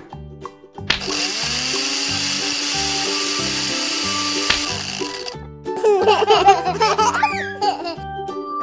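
Electric blender motor sound effect: it spins up with a rising whine about a second in, runs steadily for about four seconds, then cuts off sharply. It plays over children's background music with a steady beat, and a short burst of warbling, pitch-bending cartoon sounds follows.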